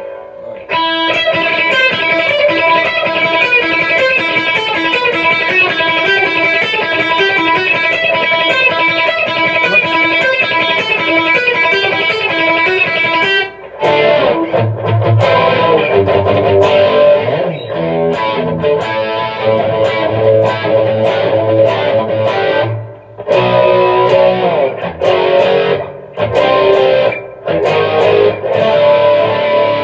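Electric guitar played through a Gallien Krueger 250RL amp head, on the overdrive channel with the gain up. First comes a long run of fast picked notes. From about halfway there is choppy riffing with heavier low notes, broken by short stops.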